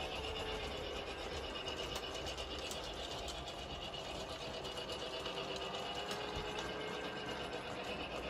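Remote-controlled toy train running on its track: a steady small-motor whir with fine, fast clicking from the wheels on the rails.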